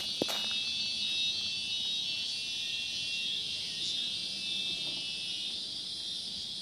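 Steady high-pitched chorus of insects shrilling in dense hillside vegetation, with a single knock shortly after the start.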